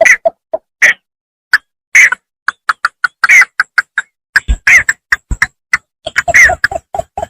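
Paddy-field bittern calling: a rapid run of short, clipped notes, several a second, with a brief pause about a second in.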